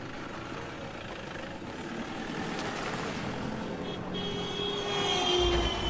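A car driving close past on a busy street, its noise swelling. A high tone and a lower tone are held together for about a second and a half near the end.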